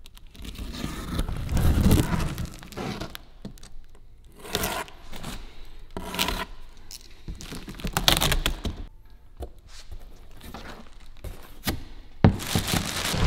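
A knife blade slitting the clear packing tape on a cardboard shipping box in irregular scrapes and tears. Near the end the box is opened and plastic wrapping crinkles.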